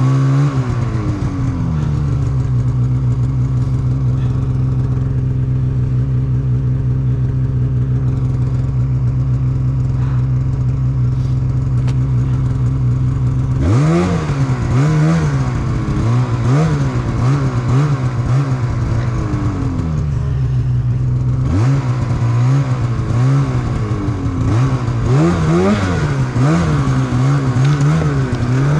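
Snowmobile engine running at a steady pitch for the first half, then revving up and down over and over as the throttle is worked, with a short steady stretch in between.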